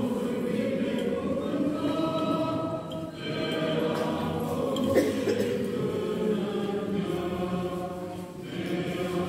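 Church choir singing Orthodox liturgical chant a cappella, in long held phrases, with short breaks about three seconds in and near the end. A single short click about five seconds in.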